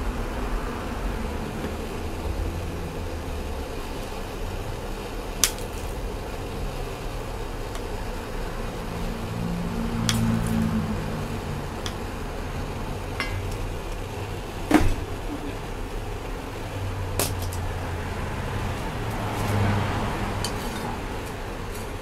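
Hand propane torch burning with a steady hiss and low rumble, with several sharp metallic clinks as copper pieces are shifted in a metal dish, the loudest about fifteen seconds in.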